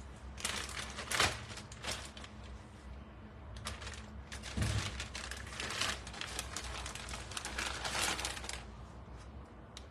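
Plastic bag of walnuts crinkling in three spells of handling, with a soft thump about halfway through.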